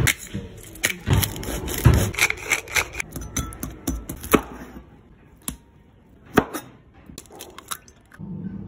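Wire whisk clinking and tapping against the side of a bowl while mixing a creamy dip, a quick run of taps for the first few seconds, then only a few single clicks.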